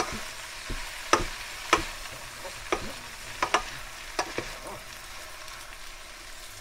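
Spaghetti sizzling in a frying pan while two wooden spatulas toss it, the spatulas knocking sharply against the pan several times, mostly in the first two-thirds.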